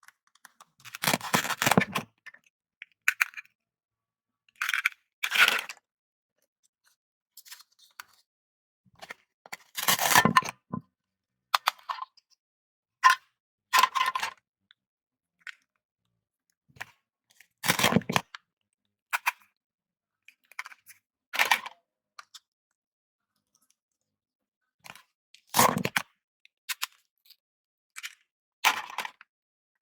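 Toy play-food fruits and vegetables being cut apart with a toy knife: a series of short rips and plastic clacks, about eight in all, with silence between them.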